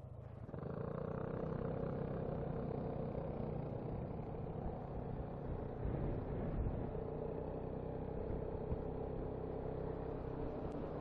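Piaggio MP3 500 scooter's engine running steadily at road speed, with wind and road noise; the sound gets louder about half a second in and stays there.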